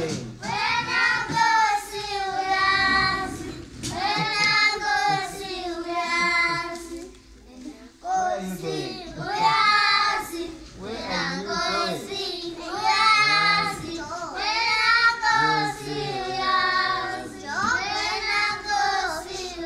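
A group of young children singing a song together, in phrases of held notes with short gaps between them; the singing fades briefly about seven to eight seconds in before picking up again.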